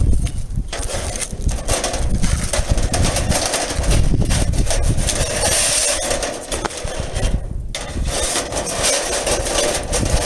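Wind buffeting an outdoor microphone: a rough low rumble with hiss that rises and falls, dipping briefly about two thirds of the way through.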